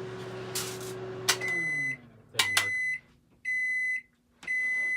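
Microwave oven running with a steady hum, then a click as the cycle ends and the hum winds down. The oven then beeps four times, about once a second, signalling the end of the cycle.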